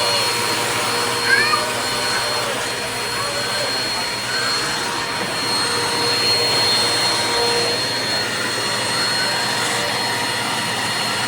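Upright vacuum cleaner running steadily, its motor noise carrying a thin steady high whine.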